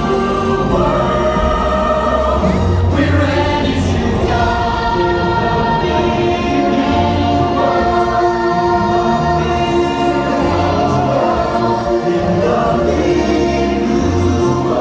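Stage-musical song with a choir singing over steady, loud music.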